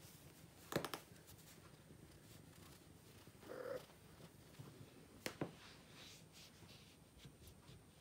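Female domestic cat in heat purring steadily, with a short soft call about three and a half seconds in and two sharp clicks, near one second and about five seconds in.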